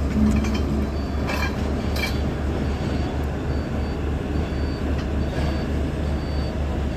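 JCB 3DX backhoe loader's diesel engine running with a steady low throb, two sharp metallic knocks about a second and a half in, and a short high beep repeating a little faster than once a second.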